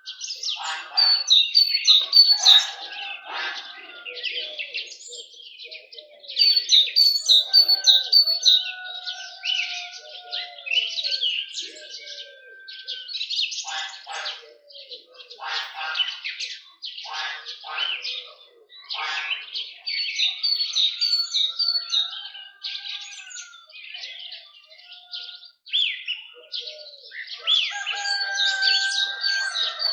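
Several songbirds singing at once, their chirps and repeated song phrases overlapping, with lower whistled notes among them. The singing swells loudest a second or two in, around seven seconds in, and again near the end.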